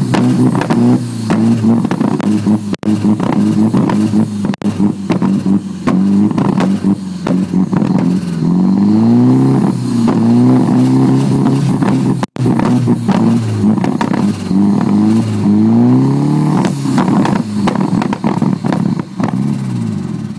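Nissan 240SX engine idling roughly, its beat uneven and stumbling. Twice, about halfway through and again near the three-quarter mark, the revs rise and fall back.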